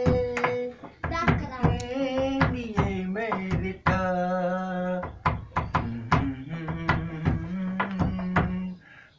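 A man singing a song in Hindi with no accompaniment, holding long steady notes. Frequent sharp knocks of a hand on the wooden bench he sits on keep time. The singing breaks off just before the end.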